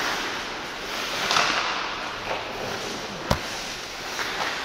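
Ice hockey play in an echoing indoor rink: skates scraping on the ice, with one sharp crack about three seconds in from a hit in the play.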